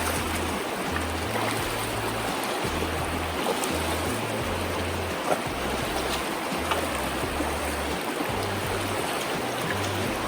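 Background music with a rhythmic bass line, over the steady rush of flowing river water.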